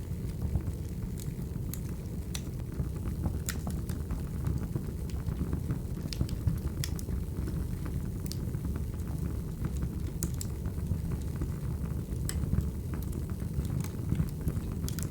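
Crackling wood fire: a steady low rumble of burning, with irregular sharp crackles and pops scattered throughout.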